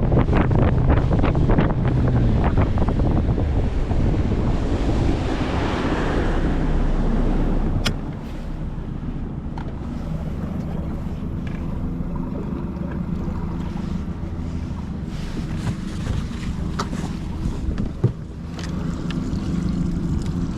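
Motorboat underway, its engine running under heavy wind buffeting on the microphone and rushing water. About eight seconds in the noise drops suddenly, leaving a quieter steady engine hum with a few sharp clicks.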